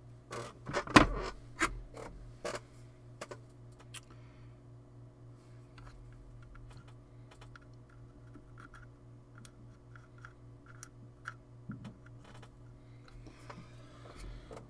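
Small clicks and knocks of a soldering iron and tools being handled on a workbench during hand soldering on a circuit board, the loudest knock about a second in, then scattered light ticks, over a steady low hum.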